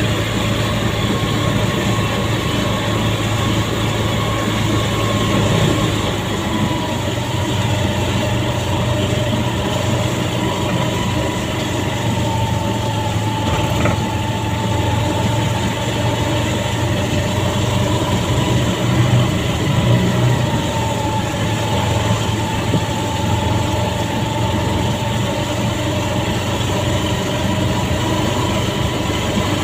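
Motorcycle engine of a tricycle running steadily, heard from inside its sidecar, over a steady wash of rain and wet-road noise.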